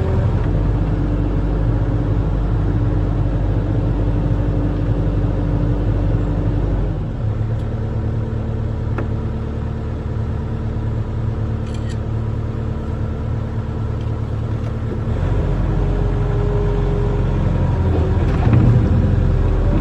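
Barge-mounted excavator's diesel engine running with a steady low rumble and whir, its note shifting as the load changes about a third of the way in and again about three-quarters through.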